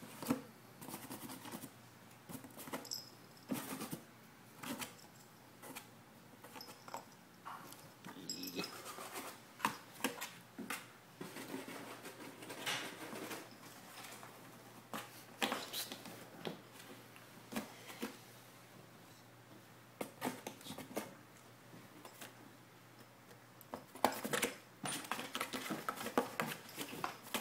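Irregular scratches and taps on a cardboard pet carrier as a kitten paws and claws at its holes, with a denser run of rapid scratching near the end.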